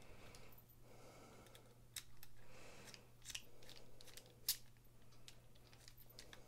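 Faint small metallic clicks and scrapes of a precision screwdriver bit seating in and turning the pivot screw of a Bestech Falko folding knife, with one sharper click about four and a half seconds in.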